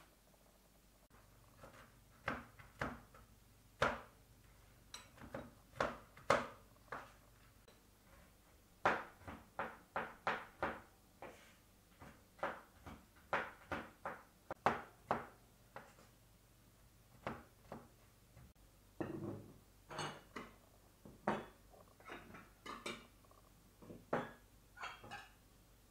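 A large kitchen knife chopping nuts on a wooden cutting board: a run of irregular sharp knocks, densest in the middle. Near the end, plates are set down one by one on a table.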